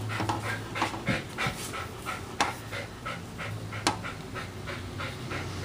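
A dog panting rapidly and steadily, about three to four breaths a second. Two sharp clicks stand out, one a little before halfway and one about two-thirds of the way through.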